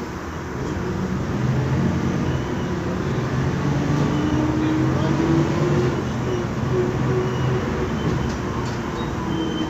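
Inside a MAN Lion's Classic city bus under way: its MAN E2876 CNG engine and ZF Ecomat six-speed automatic gearbox are heard in the cabin. The engine note grows louder about a second in and climbs in pitch near the middle before levelling off.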